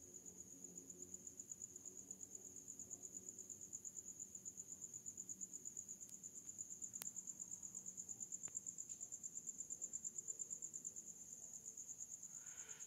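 Faint, steady cricket chirping: a high-pitched trill pulsing rapidly and evenly.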